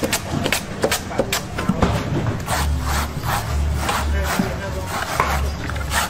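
Machete chopping the husk off a green coconut on a wooden block: a quick run of sharp strikes, about two to three a second.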